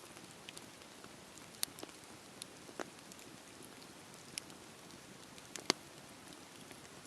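Wood fire crackling: a faint steady hiss with scattered sharp pops and snaps, the loudest pop near the end.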